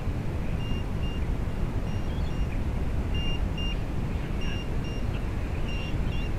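Wind buffeting the microphone, with short, high electronic beeps recurring every half second or so, singly and in small groups.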